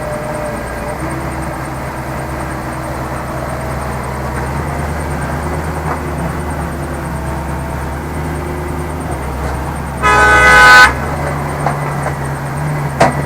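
Heavy diesel machinery engine running steadily, with one loud horn honk lasting under a second about ten seconds in. A short sharp click follows near the end.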